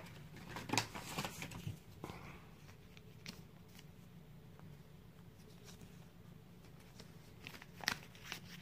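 Small plastic toy parts being handled and fitted together: scattered light clicks and rattles, a cluster about a second in and more near the end, over a faint steady low hum.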